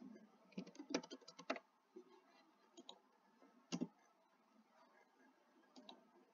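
Faint clicks of computer keyboard keys typing: a quick run of keystrokes about a second in, then a few single clicks, the sharpest near four seconds.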